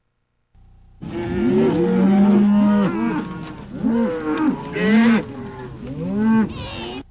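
Several cows mooing over one another, starting about a second in and stopping just before the end.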